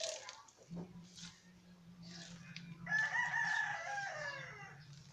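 A rooster crowing once, a pitched call of about two seconds that slides down at the end. Before it come short rustles of soil being scooped by hand into a plastic bottle.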